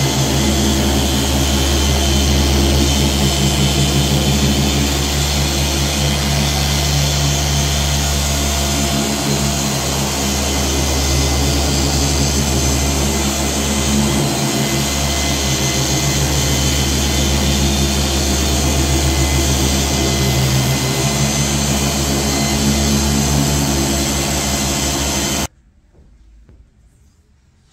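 Rupes dual-action polisher running steadily with a foam pad on car paint, a constant motor whine over a low hum. It shuts off suddenly near the end.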